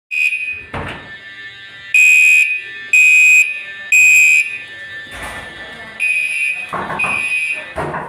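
Fire alarm horn/strobes sounding a loud, high horn tone in pulses of about half a second, roughly one a second. A couple of short knocks of handling or movement come between pulses.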